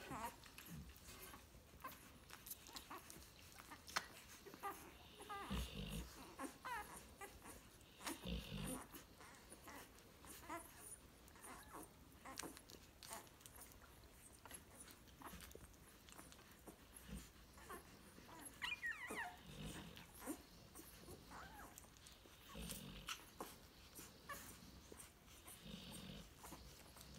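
Faint sounds of two-week-old puppies nursing: steady soft suckling clicks and smacks, with a few brief high squeaks and some low grunts.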